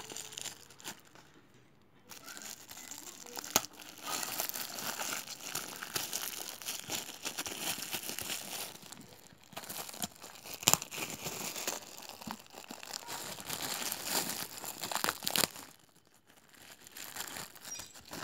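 Plastic packaging being handled and unwrapped: bursts of crinkling and rustling with a few sharp clicks, easing off briefly near the start and again near the end.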